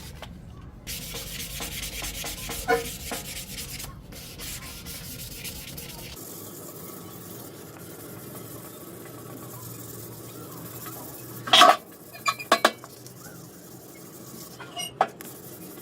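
Repeated rubbing or sanding strokes on a part, then a few sharp knocks in a cluster past the middle and once more near the end.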